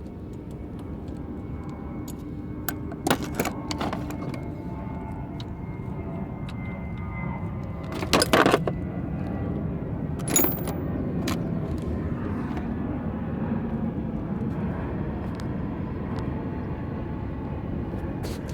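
Metal tools and parts clinking and knocking a few times, the loudest a short cluster of clanks about eight seconds in, over a steady low rumble.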